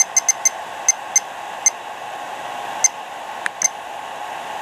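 Short, high electronic beeps from an M800 smart charger as its scroll wheel is turned to set the discharge current: about nine pips, a quick run of four in the first half-second, then spaced further apart, over a steady hiss.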